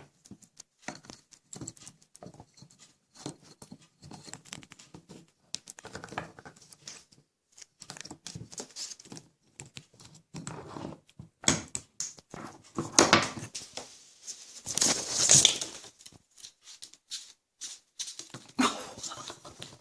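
Grey parrot handling a toy train set: scattered clicks, taps and rustles, with louder scratchy bursts about 13 and 15 seconds in.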